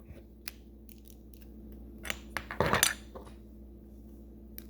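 Plastic LEGO bricks clicking and knocking as they are handled and pulled apart: a few separate clicks, with a louder cluster of clicks about halfway through.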